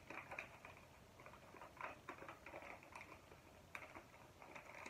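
A sheet of paper rustling and crinkling faintly as it is folded by hand into a paper boat, in irregular scratchy rustles, with one sharper crackle near the end.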